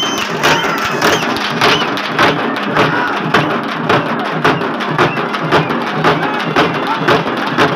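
Drums beaten in a steady rhythm, about two strokes a second, over the din of a large crowd shouting.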